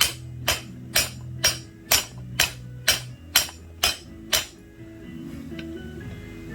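Hammer blows on steel at an anvil, about two a second, ten strikes in a steady rhythm, each ringing briefly; they stop about four and a half seconds in. Radio music plays underneath.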